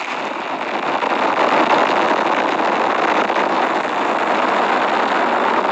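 Atlas V 421 rocket at liftoff, its RD-180 first-stage engine and two solid rocket boosters firing: a loud, steady, crackling roar of rocket exhaust that builds over the first couple of seconds and then holds.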